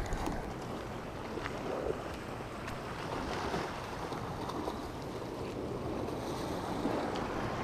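Sea waves washing against the rocks of a jetty, with wind buffeting the microphone in a steady low rumble.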